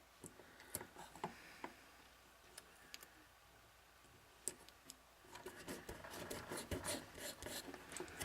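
Scattered faint clicks of small objects being handled, then from about five seconds in a dense crackling run of small clicks as adhesive tape is pulled off its roll and laid on the fan housing.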